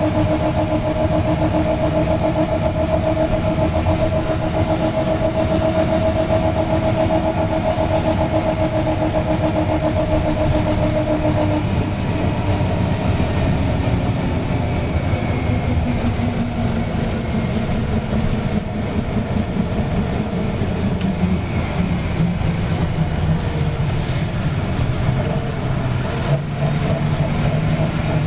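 Detroit Diesel 6V92TA two-stroke V6 diesel of a 1985 GMC RTS transit bus running with a steady drone. Its pitch shifts about twelve seconds in, drifts slowly after that, and steps up again near the end as the engine speed changes.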